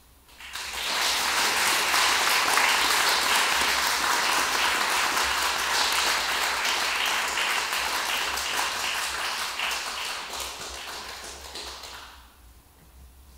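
Audience applauding: many hands clapping together, rising quickly about half a second in, holding steady, then thinning out and stopping about a second before the end.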